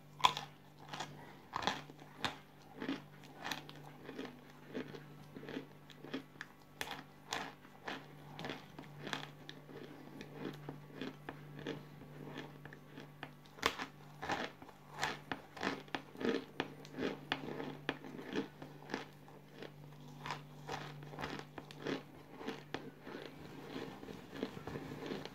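Close-up crunching and chewing of brittle chunks of cooled cornstarch: sharp, dry crunches a few times a second, over a steady low hum.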